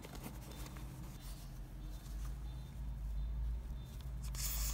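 Rustling as a self-inflating camping pillow is handled over a steady low rumble, then, near the end, a sudden hiss of air rushing in as its valve is opened to let it inflate.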